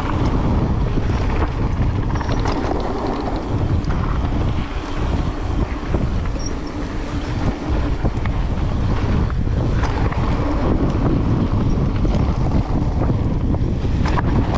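Heavy wind buffeting on the microphone while riding a mountain bike down a trail, a steady rumble with scattered short rattles and knocks from the bike and tyres on the rough ground.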